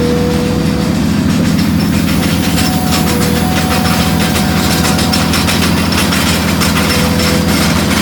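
Heavy diesel plant running steadily: a Powerscreen jaw crusher working with an excavator loading it. From about two and a half seconds in, a dense clatter of chalk rock rattling through the machinery rides over the engine drone.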